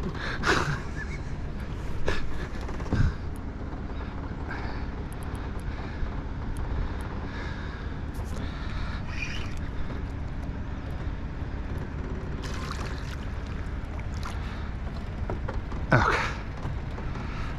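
Small boat's motor running steadily while a catfish is played on a spinning rod, with a few short, sharp noises, the loudest near the end.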